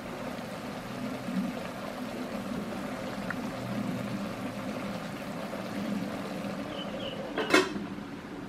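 Pork belly and eggs simmering in a pot of dark braising sauce, the liquid bubbling steadily. About seven and a half seconds in, a single sharp clank as the aluminium pot lid is set back down on the pot.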